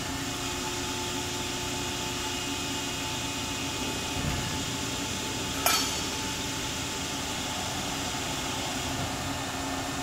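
Cincinnati 400H CNC hydraulic press brake running, its hydraulic pump giving a steady hum with several even tones. A dull thump comes about four seconds in and a sharp metallic click about a second and a half later.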